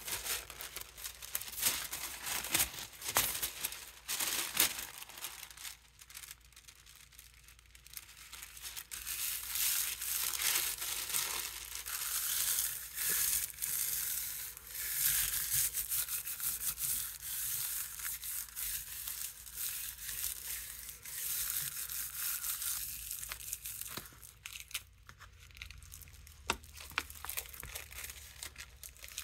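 Sheet of thin artist tissue paper rustling and crinkling as it is handled and rubbed down flat by hand onto a gel printing plate, in swells of rustling with small clicks.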